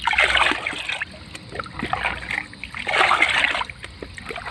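Water poured from a plastic dipper splashing into a plastic basin of cloudy fertilizer solution as the fertilizer is mixed in, in two pours of about a second each: one at the start and one about three seconds in.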